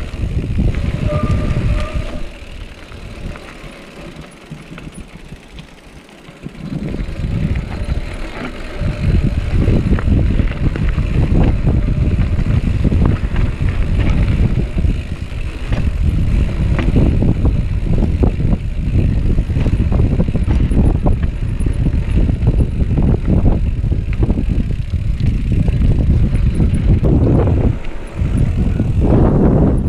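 Wind buffeting the microphone of a mountain bike's action camera as the bike rolls over rough trail, with steady rattling and knocks from the bike. It eases off a couple of seconds in, then grows loud again after about eight seconds and stays loud.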